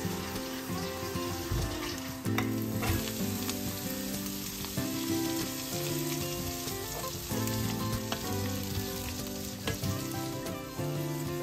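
Butter, scallion and garlic sizzling in a skillet. A little over two seconds in, green peas are poured into the pan with a few clattering clicks, and they are stirred with a wooden spoon while the sizzling goes on.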